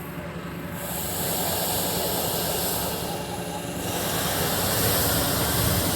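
Hot-air balloon propane burner firing to heat and inflate the envelope: a loud rushing blast that comes on about a second in, eases briefly in the middle, then fires again. A steady low hum runs underneath.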